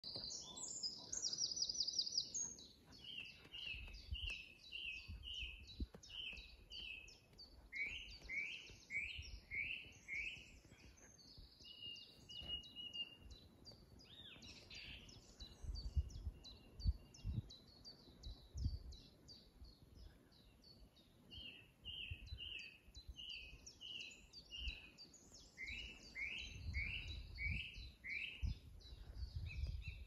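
Three songbirds singing at once: one repeats a short falling note in runs of four or five, while the others add rapid high trills and twitters. Bursts of low rumble come and go beneath the song.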